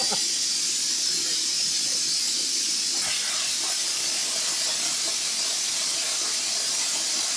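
Plasma cutter torch hissing steadily as compressed air rushes through it, with the arc cutting through steel sheet; the arc appears to strike about three seconds in.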